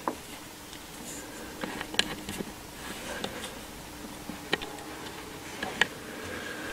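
A few small, sharp metal clicks and taps as fingers unscrew a small nut and its washers from the terminal post on the side of a distributor, over a faint steady hum.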